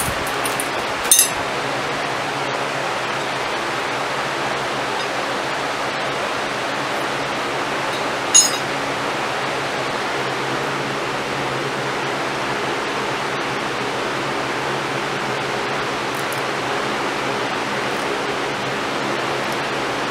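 Two short metallic clinks of steel touching the anvil, one about a second in and one about eight seconds in, over a steady rushing noise.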